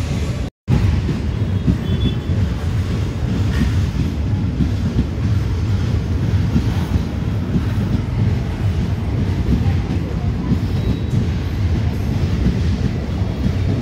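ICF passenger coaches of an express rolling past along the platform, a steady low rumble of wheels on rail. It comes in after a brief gap of silence about half a second in.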